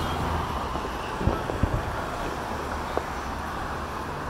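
Steady low rumble of city street traffic, with a few short distant fireworks booms: two close together about a second and a half in and another about three seconds in.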